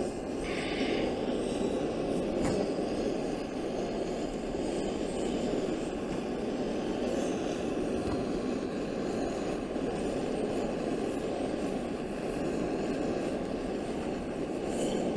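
Gas-fired soldering iron's burner flame running with a steady rushing noise as it heats the copper bit on a copper gutter seam. There is a brief higher hiss about half a second in.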